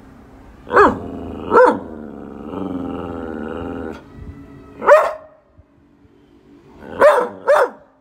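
Border collie barking: five sharp barks, two close together about a second in, one near the middle and a quick pair near the end. Between the early barks and the middle one, a lower, drawn-out dog vocal sound carries on for a few seconds.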